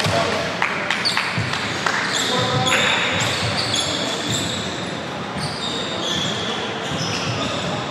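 Basketball game on an indoor court: the ball bouncing on the floor and sneakers squeaking in short chirps.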